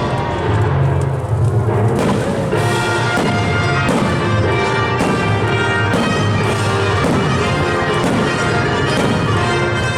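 Loud orchestral show music with brass and timpani, playing steadily.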